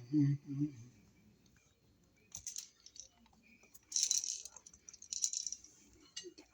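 Light clicks and rattles of hand tools and copper wire being handled while wiring a wall receptacle, coming in three short clusters.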